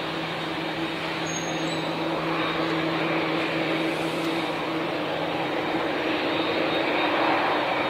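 ATR 72 twin-turboprop airliner's engines at power during its takeoff roll: a steady propeller drone with a low hum under a broad rush, growing gradually louder.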